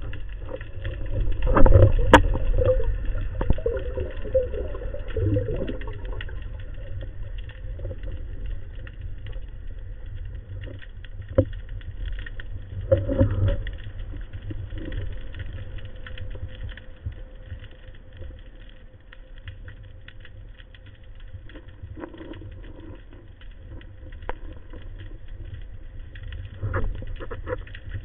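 Muffled underwater noise heard through a camera housing: a steady low rumble with scattered clicks and knocks, and louder stretches of water movement about two seconds in and again around thirteen seconds.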